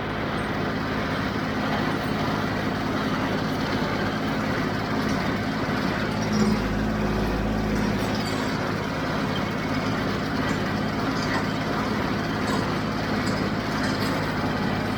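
Diesel engine of a John Deere 5055 tractor running steadily at a constant speed, with a brief deeper swell about halfway through.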